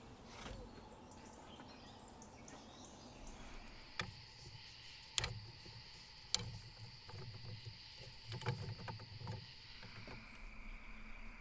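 Three sharp knocks a little over a second apart, then softer low thumps and rustling, over a steady high insect drone.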